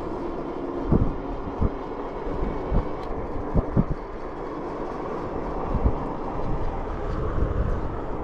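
Riding noise on an Ecotric 500 fat-tire electric bike: a steady rush of wind and tyre rumble, with several sharp knocks in the first six seconds.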